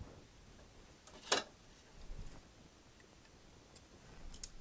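Small clicks and knocks of metal reloading tools being handled: a loaded .223 cartridge and a dial caliper fitted with a bullet comparator being set up to measure overall length. One sharp click about a second in is the loudest, with a softer knock a moment later and a few light ticks near the end.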